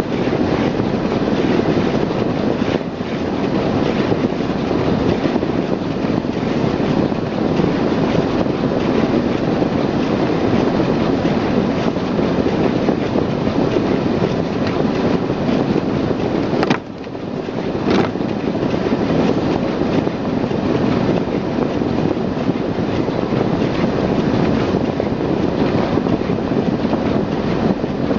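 Steady noise inside a moving car's cabin on snow-covered roads: heater fan blowing, with tyre and engine noise underneath. Two short clicks a little over a second apart come about two-thirds of the way through.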